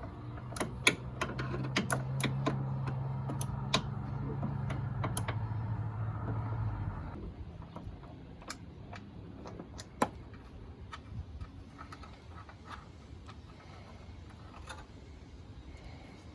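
Ratchet with swivels and an extension clicking in irregular short runs while a 13 mm hood-latch bolt is worked loose. A low steady hum sits under the first half and stops about seven seconds in.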